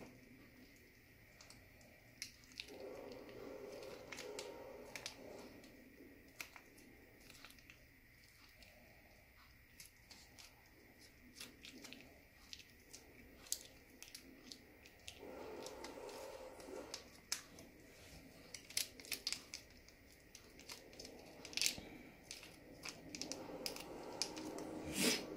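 Faint crinkling and rustling of a small plastic flavour-oil sachet as it is torn and squeezed out over the pan, with scattered sharp ticks and crackles that grow busier near the end.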